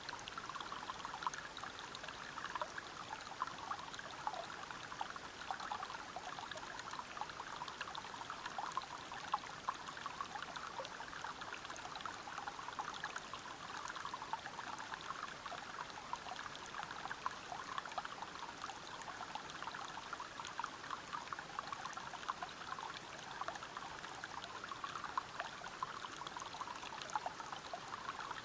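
Flowing river water splashing and gurgling over rocks, a steady dense patter with many small splashes.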